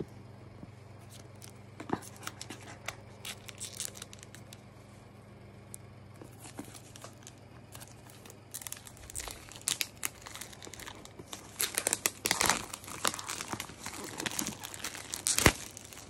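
Clear plastic wrapping being torn and peeled off a cardboard product box, crinkling and crackling. Only scattered small ticks at first, then the crinkling comes thick in the second half, loudest about three-quarters of the way through, with one sharp crackle near the end.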